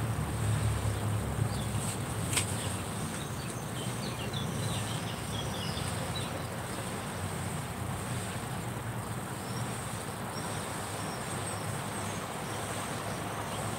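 Outdoor background: a steady high insect buzz over a low rumble of distant traffic, with a few short faint bird chirps about three to five seconds in and a single sharp click a little over two seconds in.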